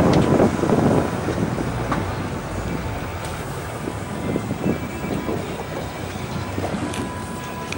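Wind on the microphone and water washing around a small boat on open water, loudest in the first second, with scattered sharp clicks and splashes.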